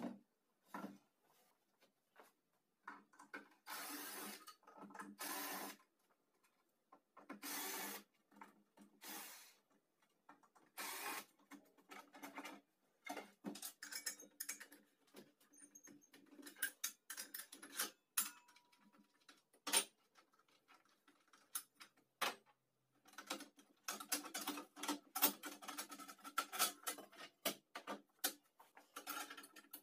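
A circular saw being taken apart by hand on a wooden table top: clicks, taps and light knocks of metal parts, screws and tools being handled and set down. Several short rasping bursts, each about a second long, come in the first ten seconds, and the sharp clicks thicken near the end.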